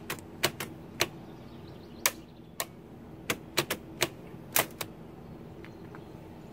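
Keys and bars of an early-1920s Marchant electromechanical calculator pressed by hand: about a dozen sharp mechanical clicks at uneven spacing, stopping about five seconds in. The machine fails to fire.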